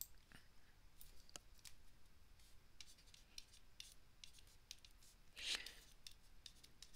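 Near silence with faint clicks and scratching of a stylus writing on a tablet, and a short hiss about five and a half seconds in.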